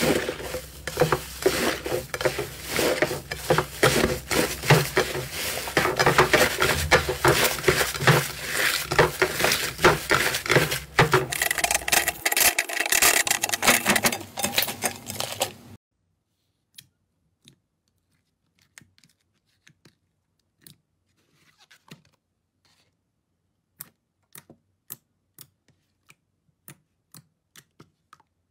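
Slime being squeezed and kneaded by hand: for about the first sixteen seconds, a dense run of squishing crackles and pops. It then cuts off suddenly to sparse, sharp single pops as fingers press soft, glossy slime.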